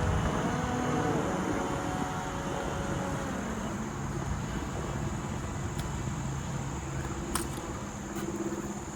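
Road traffic rumbling and fading away, under a steady high-pitched buzz of insects. A single sharp click sounds about seven seconds in.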